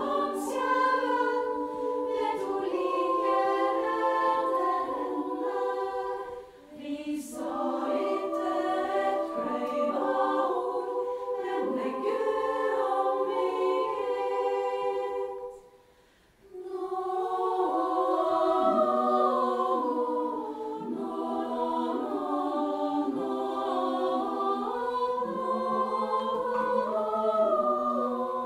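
Female choir singing in several voice parts, with a short break about six seconds in and a near-silent pause of about a second around sixteen seconds in before the next phrase.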